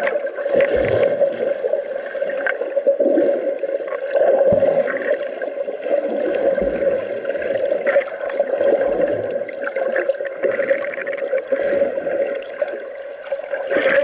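Muffled underwater sound heard through a submerged action camera's waterproof housing: gurgling and bubbling water over a steady hum, with low thumps now and then.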